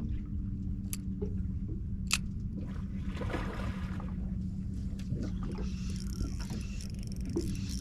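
Boat motor running with a steady low hum, a few sharp clicks and knocks on top, the loudest about two seconds in.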